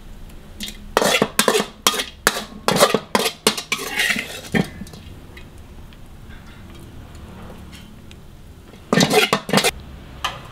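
Metal spatula scraping and clanking against a steel wok while food is scooped out onto a plate: a quick run of strikes and scrapes for a few seconds, then a second brief run near the end.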